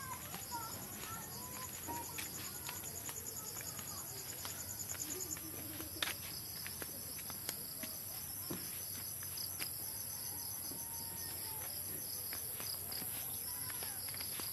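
Insects, crickets among them, trilling steadily in a high, continuous chorus; one rapid pulsing trill stops about five seconds in. Scattered light clicks and a few short chirps over it.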